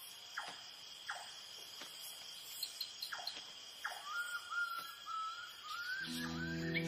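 Night rainforest ambience: a steady high-pitched insect chorus with short falling calls repeating about every second. A bird's warbling song begins about four seconds in, and soft music fades in near the end.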